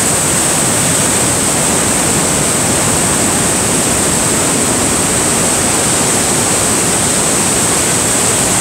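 Niagara Falls' water crashing onto rocks: a loud, steady roar of falling water.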